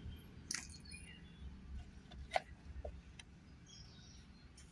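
Faint outdoor background with two light clicks, about half a second and two and a half seconds in, and a few faint high chirps.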